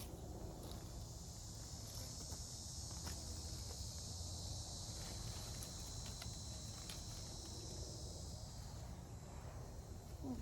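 Insects trilling steadily in a high band, fading out near the end, over a low rumble and a few faint clicks.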